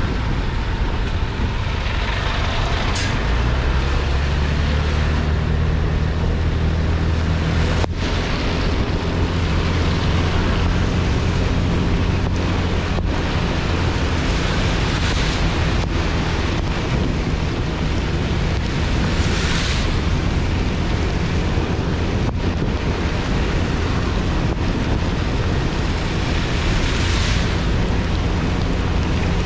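Wind buffeting a GoPro HERO8 Black's microphone, unfiltered, during a ride in the rain, over a low steady engine hum that sets in a few seconds in. A rushing hiss swells four times, and a few faint knocks come through.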